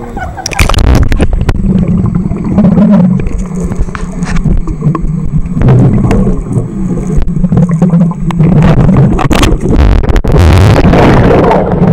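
Muffled water noise picked up by a camera held underwater in a swimming pool: a loud, low churning with scattered clicks, starting as the camera goes under about a second in. A louder rush of water comes about ten seconds in.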